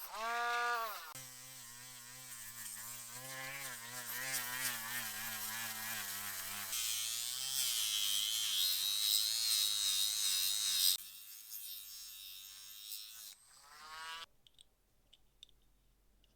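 A small electric motor-driven tool running, its pitch wavering as the load changes, with a hissing edge for a few seconds before it cuts off sharply about eleven seconds in. A few faint clicks follow near the end.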